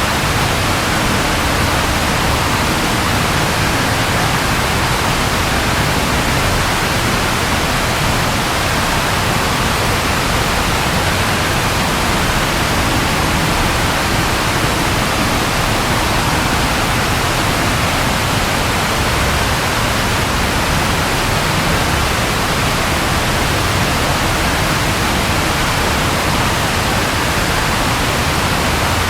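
Steady, even rainfall: a constant hiss with no thunder.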